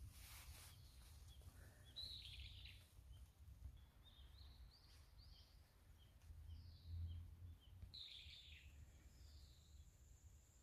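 Faint wild birdsong: scattered short chirps and a few falling notes, the loudest about two seconds in and again near eight seconds, over a low steady rumble. A thin, steady high tone sets in near eight seconds.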